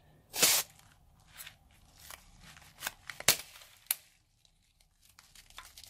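Scissors snipping through a rubber balloon about half a second in, followed by small hard bits spilling out of the cut balloon into a plastic bowl with a scattered crackle and a few sharp ticks, dying away after about four seconds.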